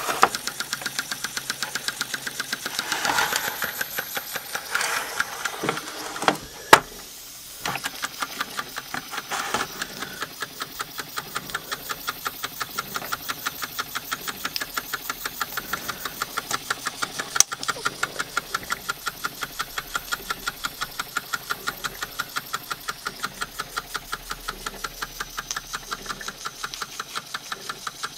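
Wilesco R200 toy steam engine running, its steam exhaust beating in a fast, even rhythm of about five puffs a second. There are a few sharp clicks and a brief lull about seven seconds in.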